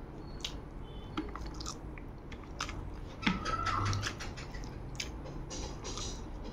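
Close-up mouth sounds of a person eating rice by hand: chewing with irregular wet clicks and smacks.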